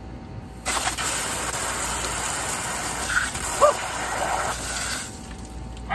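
Water spraying under pressure out of the open valve stem of a water-ballasted tractor rear tire while the valve core is being put back in: a loud, steady hissing gush that starts about a second in and cuts off sharply near the end.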